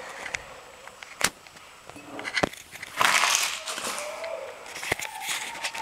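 McDonald's paper burger wrapper crinkling and rustling as it is handled, loudest in a burst about three seconds in, with a few sharp knocks at separate moments.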